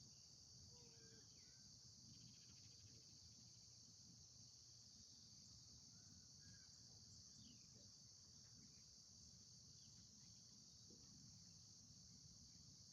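Near silence with a faint, steady high insect chorus and a few faint, brief bird chirps.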